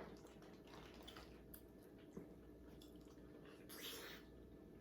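Faint wet eating sounds: sauce-coated crab being handled and chewed, with small clicks, a soft squish about 4 seconds in, and nearly quiet otherwise.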